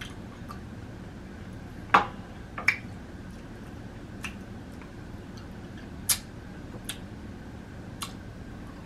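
Close-miked chewing of Flamin' Hot Cheeto-crusted fried food: a handful of short, sharp crunches and wet mouth clicks, the loudest about two seconds in and again about six seconds in.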